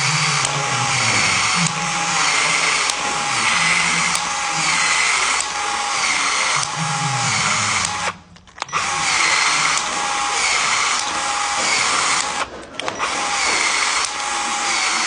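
Handheld power tool running in a steady, evenly repeating cycle while a pipe joint is worked, stopping briefly about eight seconds in and again near twelve and a half seconds, then starting up again.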